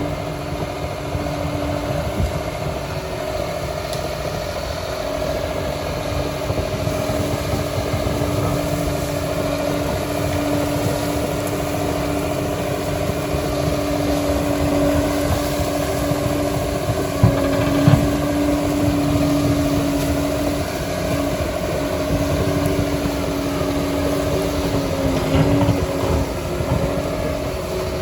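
Liebherr PR 746 crawler dozer running steadily: a diesel rumble with a steady whine over it, and a couple of sharp knocks a little past the middle.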